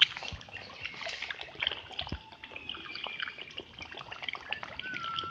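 Pond water trickling and splashing in many small irregular splashes, with a few brief whistled bird calls near the middle and end.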